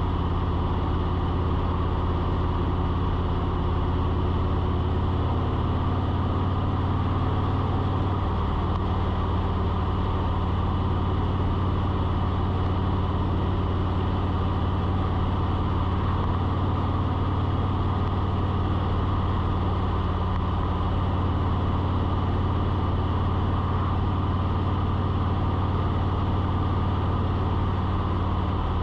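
A steady low mechanical drone with a hiss over it; its pitch shifts slightly between about five and eight seconds in.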